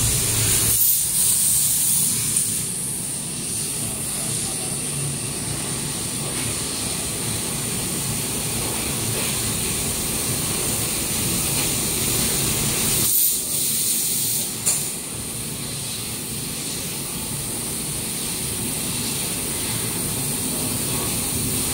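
Bescutter 2 kW fiber laser cutting machine cutting 6061 aluminium plate: a steady hiss from the cutting head with a steady high whistle over it. The sound changes in character about a second in and again about 13 s in, with a short click near 15 s.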